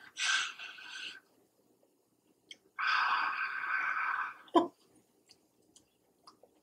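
A short breathy burst, then a noisy rush of breath and paper lasting about a second and a half as a paper napkin is pressed over the mouth and nose, with a small click just after.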